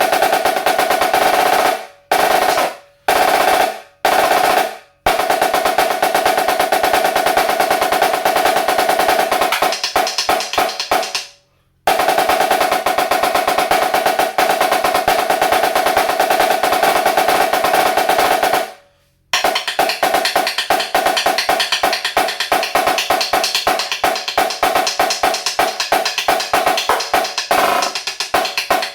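Premier HTS 484 high-tension marching snare drum played with sticks. A few short rolls cut off sharply come first, then two long rolls of several seconds each, then a run of rapid separate strokes near the end. A steady pitched ring carries under the strokes.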